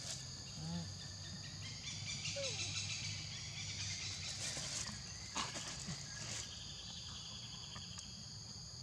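Steady, high insect chorus of crickets or cicadas. A couple of short squeaky calls, one falling in pitch, come in the first few seconds, and a patch of soft rustling and a few small clicks follow in the middle.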